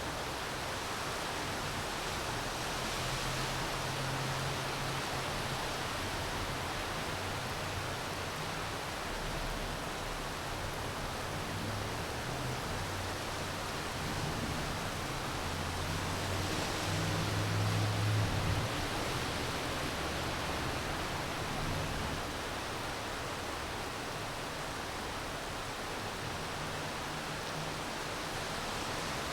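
Steady rain hiss. A low hum swells up beneath it about halfway through and fades again a few seconds later.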